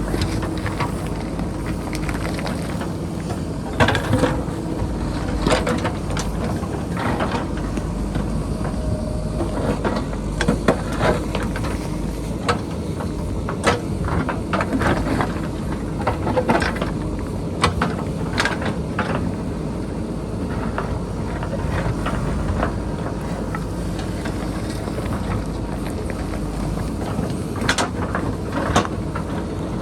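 JCB backhoe loader's diesel engine running steadily under load, with irregular knocks and clatter of the bucket striking and scraping rock and boulders.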